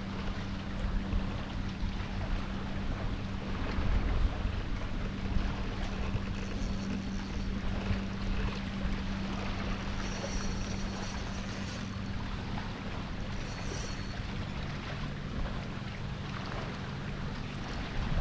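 Wind buffeting the microphone and water around a fishing kayak. Under it runs a steady low hum that drops in pitch about two-thirds of the way through.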